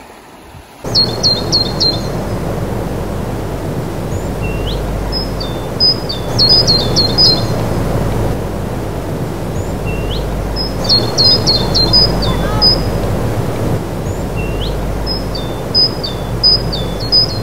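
A songbird singing a short phrase of quick high chirps, each led by a rising note, about every four to five seconds, over steady outdoor background noise.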